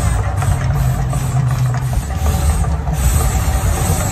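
The Mirage volcano show's eruption: a loud, steady deep rumble with a noisy hiss above it while the gas flame jets burn on the lagoon.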